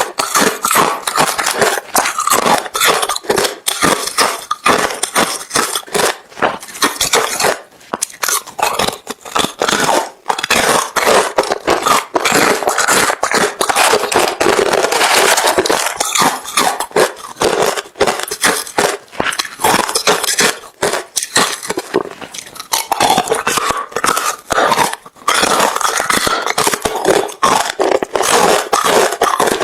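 Close-up chewing of hard refrozen crushed ice: a dense, rapid run of crunching and crackling as the ice breaks between the teeth, with a few brief pauses.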